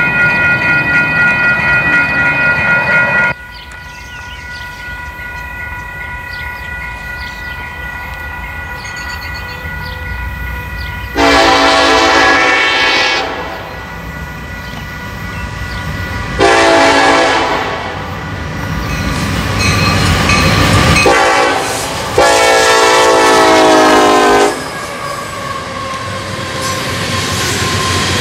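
Union Pacific freight locomotive's air horn blowing a sequence of long blasts, with a short note before the last, as the train approaches: the pattern of a grade-crossing warning. The rumble of the train grows between blasts. A loud passing-train sound cuts off suddenly about three seconds in.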